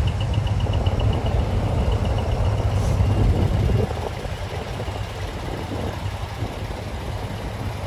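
Heavy diesel truck engines rumbling low as decorated trucks roll slowly past in a line. The rumble is loudest in the first half and eases off about four seconds in. A fast, high-pitched ticking sits over it at first.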